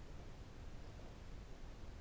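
Quiet room tone: a faint steady hiss with no distinct sound.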